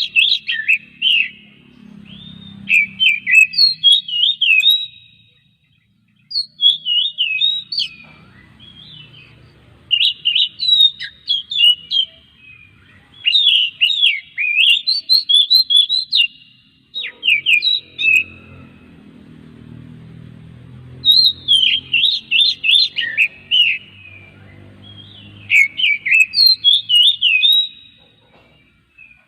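Oriental magpie-robin (kacer) singing: loud phrases of rapid, sweeping whistled notes, each lasting a second or two, repeated with short pauses between them.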